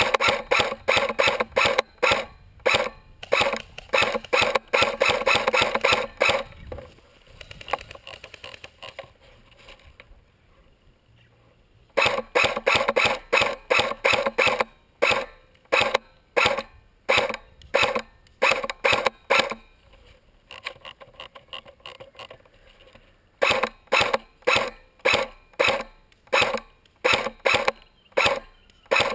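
Footsteps in quick, regular strides, about two a second with a crunching scrape on each, in three stretches separated by short pauses.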